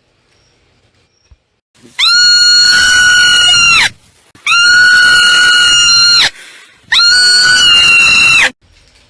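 Marmot giving three long, loud, scream-like alarm calls, each held at a steady high pitch for nearly two seconds with short pauses between.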